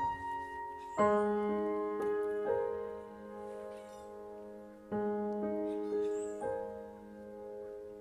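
Soft, slow solo piano background music: held chords struck about a second in and again near five seconds, each left to ring.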